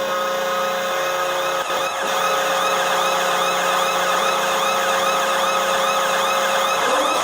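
Washington Capitals goal horn sounding a steady, loud low chord, with a short break about a second and a half in. A siren joins about two seconds in, wailing up and down about twice a second over the horn.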